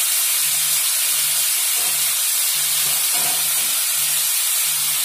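Eggplant, onion and tomato frying in an aluminium kadai: a steady sizzling hiss, with a low hum pulsing a few times a second underneath.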